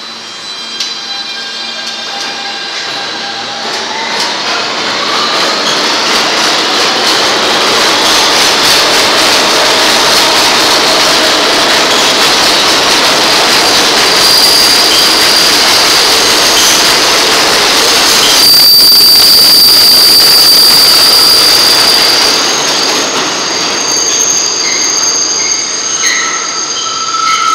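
R160B subway train with Siemens propulsion pulling out and accelerating past: the traction motors' whine climbs in pitch a few seconds in. Loud, building wheel-and-rail noise follows as the cars pass, with high steady wheel squeal through the middle and latter part.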